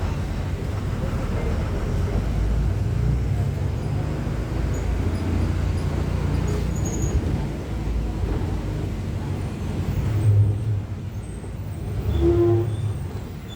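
Iveco S170 bus's FPT NEF 6 inline-six diesel engine running with a steady low rumble, swelling briefly louder twice near the end.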